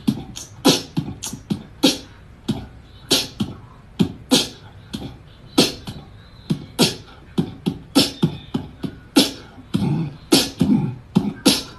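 A quick, uneven run of sharp clicks and soft low pops, about two or three a second, in a percussive, beatbox-like pattern.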